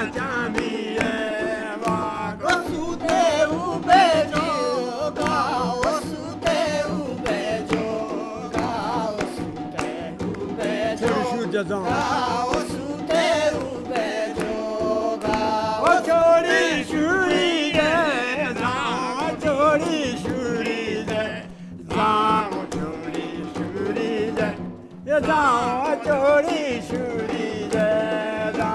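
Group of men singing a Jaunsari folk song to the beat of a dhol drum. The singing breaks off briefly twice in the second half.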